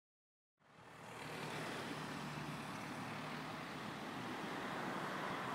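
Steady hum of distant road traffic, fading in after a moment of silence.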